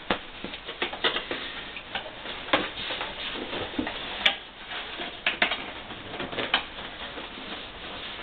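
Hands rummaging in a cardboard shipping box full of foam packing peanuts: irregular clicks, crackles and rustles from the peanuts and the cardboard, with one sharper click about four seconds in.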